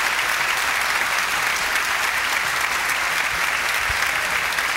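Large audience applauding steadily at the end of a gospel song, a dense even clapping with no music left under it.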